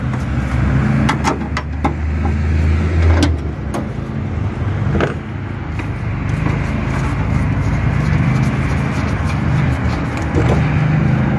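A steady low engine hum in the background, with scattered short clicks and knocks of gloved hands working the plastic connectors, clips and panel under a car's trunk lid.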